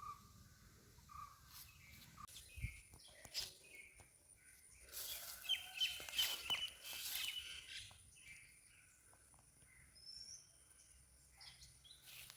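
Faint outdoor ambience of small birds chirping in short calls, with rustling. The loudest stretch comes about five seconds in: a couple of seconds of rustling with a rapid run of chirps.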